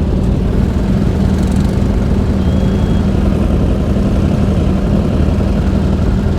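Motorcycle engine running at a steady, even pitch while riding, with road and wind noise and no revving.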